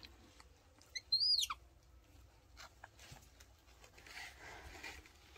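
A single short, high-pitched animal squeak about a second in, rising quickly and then gliding steeply down; otherwise faint light clicks and rustling.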